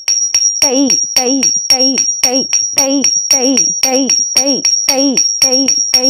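Rhythmic percussion music for dance practice: evenly repeated pitched strokes, about three a second, each with a sharp jingling attack, over a thin steady high-pitched tone.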